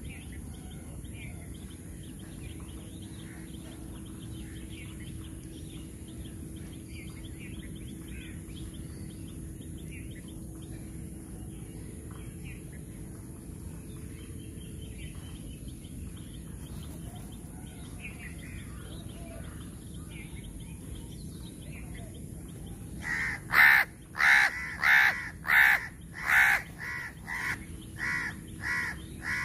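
Crow cawing loudly in a quick series of about a dozen caws, roughly two a second, starting near the end and growing softer. Before that there is only steady low background noise with faint bird chirps.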